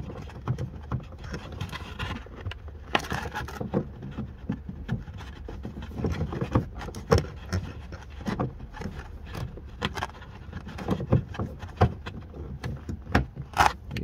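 Hands working inside a car's tail-light housing among plastic connectors and wiring, making irregular small clicks, scrapes and rustles. A low steady hum runs underneath.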